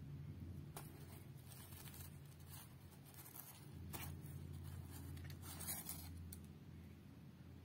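Faint rustling and scraping of the paper liner and cardboard box as food is handled inside it, in a few short scratchy bursts over a low steady hum.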